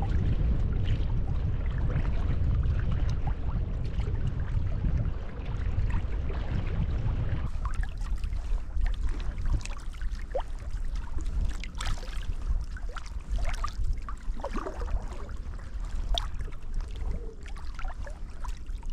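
Water splashing and dripping around a paddled inflatable kayak, with the lake's choppy water lapping at the hull and a low wind rumble on the microphone. About seven seconds in the rumble drops back and the sharp splashes and drips stand out more clearly.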